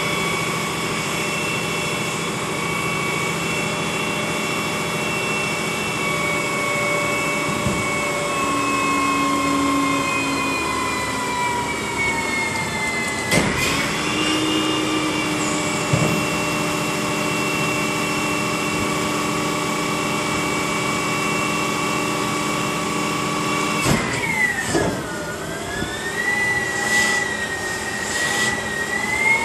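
Front-loader garbage truck's engine held at raised revs to drive the hydraulics, with a steady hydraulic whine. The pitch sags and jumps back with a metal clunk about halfway through, dips again with another clunk near the end, then climbs as the forks lift the dumpster over the cab.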